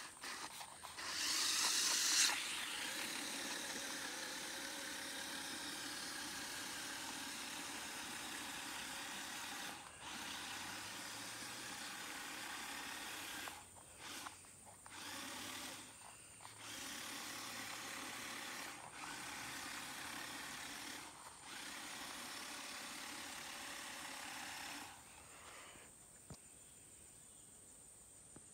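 Small electric motors of a toy remote-control amphibious car running with a steady whine. The whine cuts out briefly several times and comes back, then stops near the end. A loud burst of noise comes about a second in.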